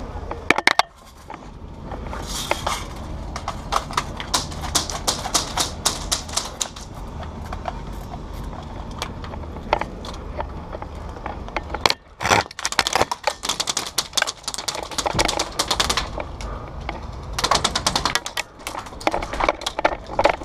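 Airsoft guns firing in rapid bursts: fast runs of sharp clicks, several bursts in a row with short gaps between them.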